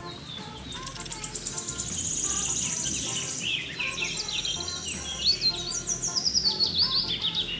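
Several birds chirping and trilling: a fast high trill partway in, then many quick falling chirps toward the end.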